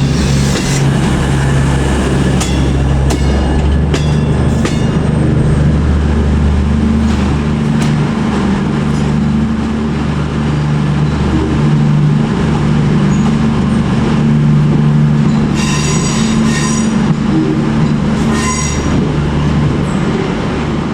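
Passenger train heard from on board, running steadily with a continuous low drone and rumble. Short high-pitched wheel squeals come twice, about three-quarters of the way through.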